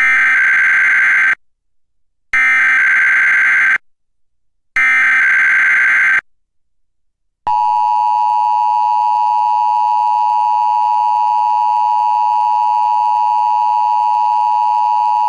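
Emergency Alert System test tones: three identical bursts of the digital SAME header, each about a second and a half long with short gaps between, then the steady two-tone EAS attention signal, which starts about seven and a half seconds in and holds for about eight seconds.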